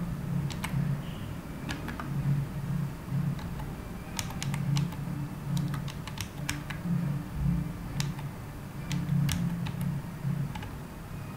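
Keys being struck on a computer keyboard in irregular runs of clicks while C code is typed, over a steady low hum.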